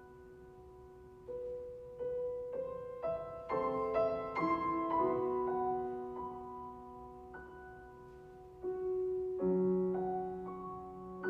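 Piano playing a soft classical art-song accompaniment: flowing chords that grow louder a few seconds in, die away, then swell again near the end.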